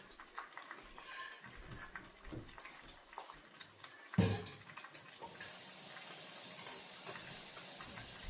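Cookware knocking and scraping, with one heavy clunk about four seconds in, then water running steadily from a kitchen tap.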